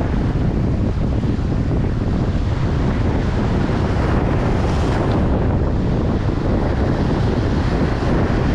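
Strong sea wind buffeting the microphone over the steady wash of surf.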